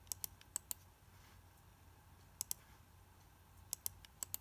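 Computer mouse buttons clicking: five quick pairs of clicks spread over a few seconds, faint over a low room hum.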